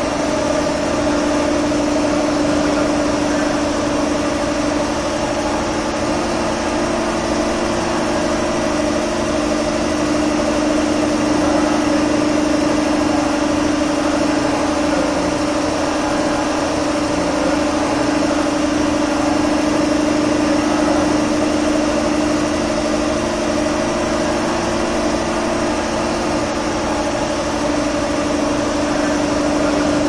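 A steady engine hum holding one pitch throughout, with no revving or impacts.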